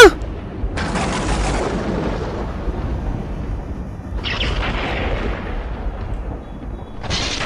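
Steady low rumble with swells of hissing noise about a second in and again around four seconds in, like a spooky ambient soundscape.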